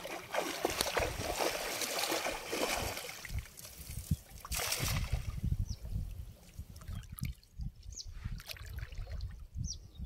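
Water splashing and trickling, busiest in the first three seconds, with a louder splash about halfway through and sparser splashes and low thumps after it.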